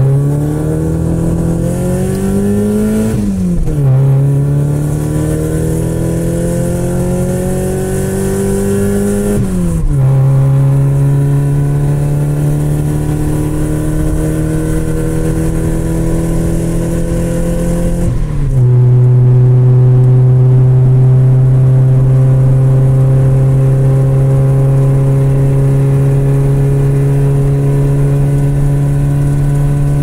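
Sports car engine accelerating up through the gears: the engine note climbs, then drops sharply at each of three upshifts, about three, ten and eighteen seconds in. In the last gear it climbs slowly for the rest of the time.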